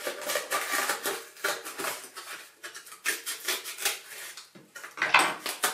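Scissors cutting through thin cardboard: a run of irregular crunchy snips, with the cardboard crackling as it is handled.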